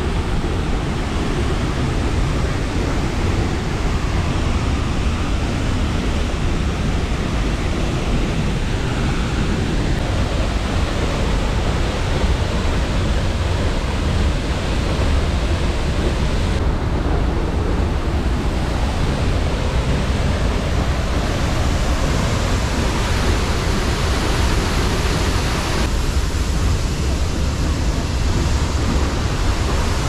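Large waterfall plunging onto rocks: a steady, loud rush of falling water, heaviest in the low end, its character shifting slightly a few times.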